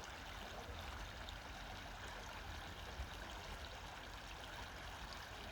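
Faint, steady flow of a shallow freshwater creek.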